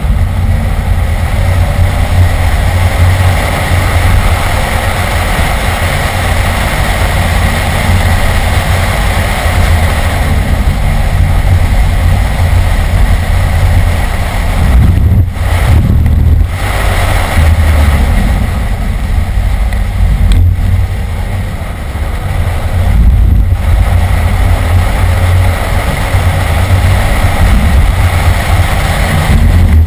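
BMW E46 M3's S54 inline-six engine driven hard on a race track, heard loud from inside the cabin. The note is broken briefly a few times past the middle, around 15, 16, 20 and 23 seconds in.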